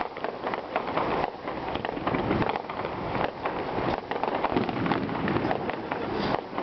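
Fireworks going off in quick succession: a dense, continuous run of bangs and crackles.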